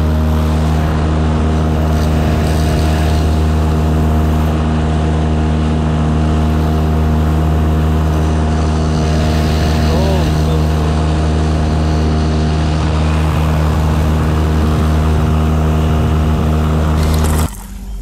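Motor of a fishing kayak driving it across open water: a steady, even drone that cuts off suddenly near the end.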